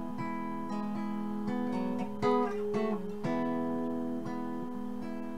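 Epiphone semi-hollow-body guitar strummed, its chords left ringing, with a new strum roughly every second.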